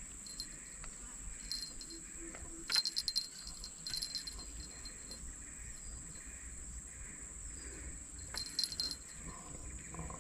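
Steady high-pitched drone of insects, with short rattling clicks about three seconds in and again near the end.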